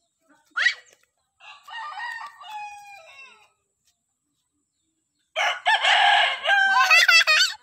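A rooster crowing twice: a fainter crow about a second and a half in, then a louder, longer one near the end that wavers as it finishes. A brief sharp rising cry comes just before the first crow.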